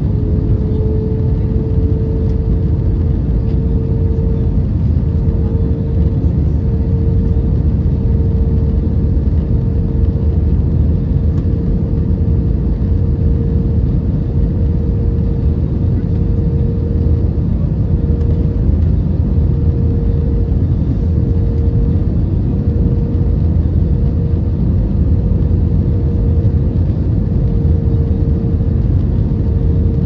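Jet airliner cabin noise during the landing approach: a steady low roar of engines and airflow, with a steady engine whine that rises slightly in pitch over the first few seconds and then holds.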